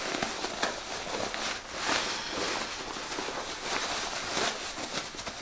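Fabric rustling and brushing as a sewn bag and its lining are pulled through a pocket opening to turn them right side out, in an irregular stream of handling noise that swells briefly about two seconds in.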